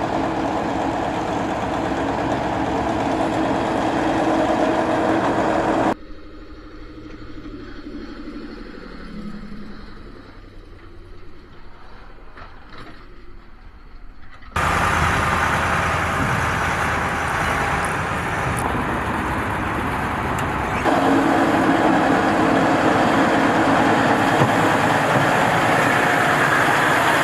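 Heavy military trucks and an armoured vehicle driving past close by, their engines running loudly. The sound is cut into several sections that change suddenly in loudness: it drops about six seconds in, jumps back up partway through, and gets louder again a few seconds later.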